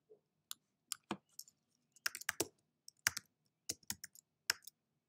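Typing on a computer keyboard: a dozen or so irregular keystroke clicks, some in quick pairs.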